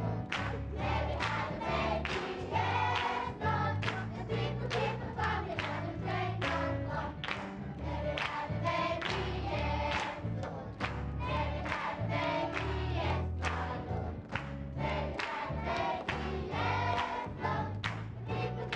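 Children's gospel choir singing an upbeat Christmas song over instrumental backing, with hands clapping on the beat about twice a second.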